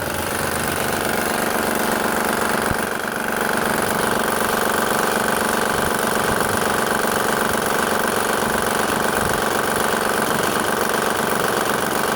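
2007 Honda Pilot's 3.5-litre V6 running steadily at idle with the timing belt exposed, a rattle coming from the loose timing belt. The hydraulic timing belt tensioner is moving up and down too much, which the mechanic takes for the cause of the noise.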